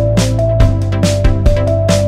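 Electronic background music with a steady beat of about two hits a second over a held bass line and a short repeating synth melody.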